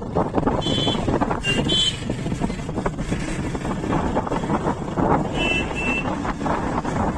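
Yamaha FZ25 motorcycle accelerating through traffic, its single-cylinder engine and wind noise from the bike-mounted microphone making a dense, steady rumble. Short, high horn beeps cut in about a second in, again just before two seconds, and twice more about five and a half seconds in.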